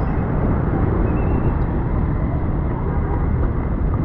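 Strong wind buffeting the microphone as a steady low rumble, with the hiss of road traffic on wet streets underneath.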